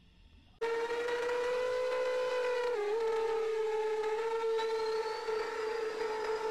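Quiet at first, then about half a second in a loud steady whine cuts in: the motors and propellers of a 7-inch FPV quadcopter with Emax Eco 2807 1300kv motors on 6S, heard in flight through its onboard camera. The pitch holds steady apart from a brief dip about three seconds in.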